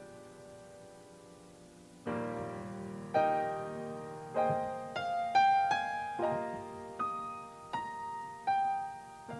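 Solo piano played slowly: a held chord fades away, then about two seconds in new chords and single notes are struck, roughly one a second, each ringing and dying away.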